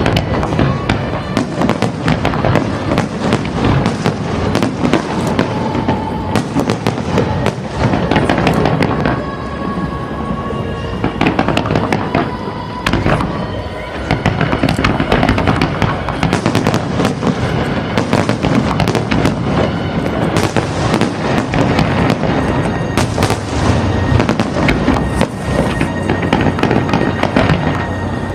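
Fireworks display going off continuously: a rapid, dense run of bangs and crackles with no pause, while music plays over loudspeakers.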